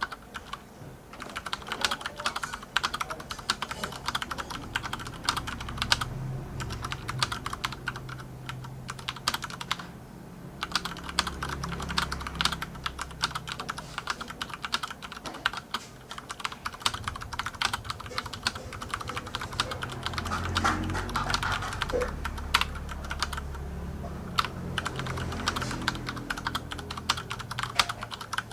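Typing on an AKKO 9009 Retro mechanical keyboard with Cherry MX Brown switches: a fast, continuous run of key clacks, with brief pauses about a second in and about ten seconds in.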